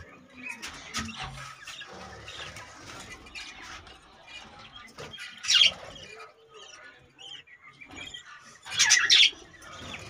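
Budgerigars chirping and chattering in many short calls, with two louder squawks, one about halfway through and one near the end.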